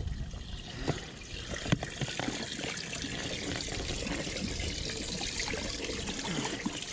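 Water trickling and splashing steadily, with a few light knocks, the sharpest just under two seconds in.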